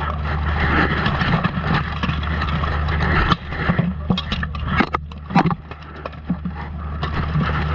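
Steel plate armour and gear rattling and scraping against a chest-mounted camera as the fighter moves, over a steady rumble. About three to five and a half seconds in comes a cluster of sharp metallic clinks and knocks.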